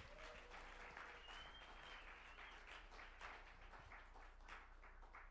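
Faint audience applause, many hands clapping, thinning out near the end.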